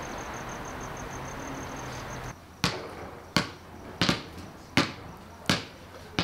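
A basketball being dribbled on a concrete driveway: six sharp, evenly spaced bounces, about one every 0.7 seconds, starting a little over two seconds in after a steady hiss.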